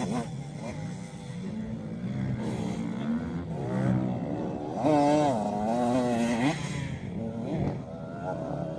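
Motocross bike engines revving up and down as the bikes ride the track, the pitch rising and falling constantly. They are loudest from about five seconds in, for a second and a half.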